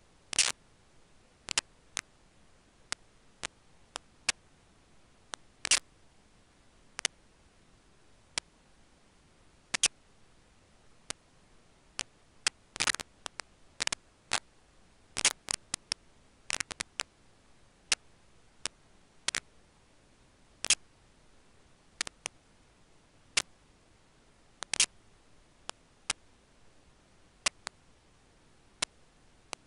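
Irregular sharp clicks and ticks over a faint steady hiss, about one or two a second, bunched into quick flurries around the middle.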